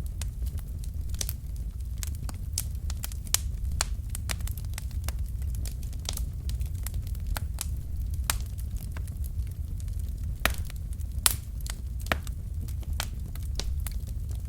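Wood fire burning in a fireplace: logs crackling with irregular sharp pops over a steady low rumble of the flames, two louder pops near the end.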